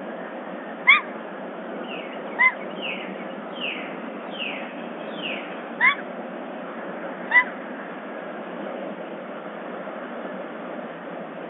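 A bobcat gives four short, high calls that rise and fall, about one to three seconds apart. Between its calls a bird answers with a run of five quieter falling whistles, over a steady hiss.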